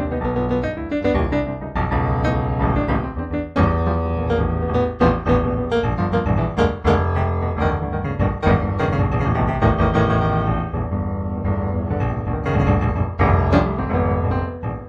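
Solo piano music: a melody of many struck notes over sustained low bass notes.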